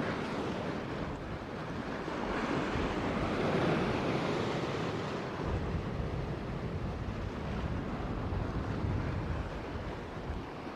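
Sea waves washing against a rocky shore, with wind buffeting the microphone as a low rumble; the surf swells a little in the middle.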